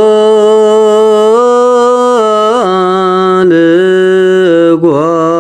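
A single voice chanting an Ethiopian Orthodox hymn in Ge'ez, holding long notes with short melismatic turns between them, stepping up slightly about a second and a half in and dipping briefly twice.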